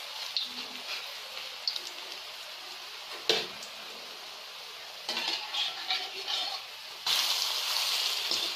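Oil sizzling and crackling around fritters of grated unripe saba banana frying in a pan. A single sharp clink of a utensil on the pan comes about three seconds in, and the sizzle turns louder about seven seconds in.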